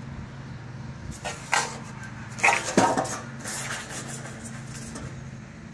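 Thin painted sheet-metal gutter section being flexed and handled, giving a few sharp crinkling clatters about a second and a half in and again around two and a half to three seconds in, over a steady low hum.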